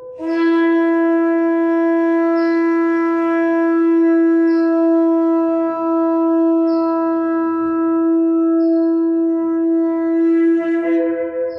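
Ram's-horn shofar blown in one long held note lasting about ten seconds, steady in pitch. Near the end it breaks up and jumps to a higher note.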